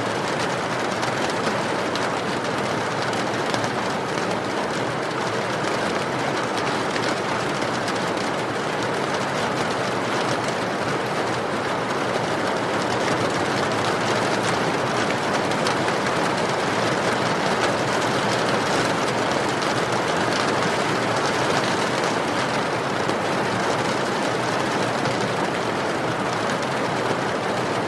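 Steady rain falling: an even, dense hiss with faint scattered drop ticks.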